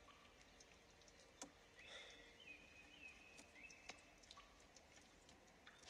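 Near silence: faint ambience with a few soft ticks and a faint high wavering tone about two seconds in.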